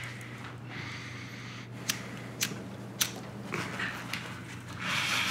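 Clothing rustling as a sleeveless hoodie is pulled off, near the end, after a few light clicks in the middle. A steady low room hum runs underneath.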